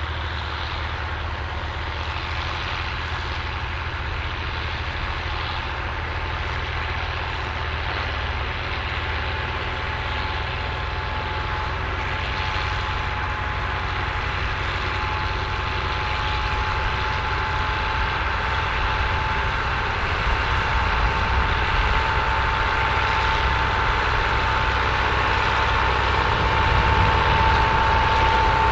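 Massey Ferguson tractor engine running steadily under load while ploughing, growing gradually louder, with a steady whine that strengthens in the second half.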